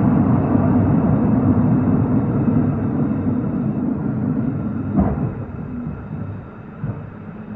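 Running noise of an old-type Japanese passenger coach: a steady rumble of wheels on rail that dies down over the last few seconds, with a sharp knock about five seconds in and a smaller one near the end.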